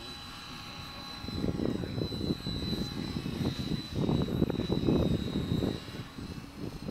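ATOM 7HV electric RC helicopter with a brushless outrunner motor, in flight, giving a steady high-pitched whine. From about a second in, an uneven low rushing comes and goes under the whine.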